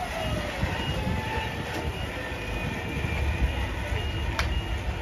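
Versalift cable placer truck running: a steady mechanical rumble from the engine and hydraulic drive as the basket is operated, with a faint high whine over it.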